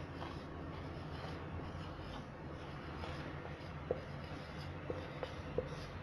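Marker pen writing on a whiteboard: faint scratchy strokes, with a few light taps of the tip in the second half, over a low steady hum.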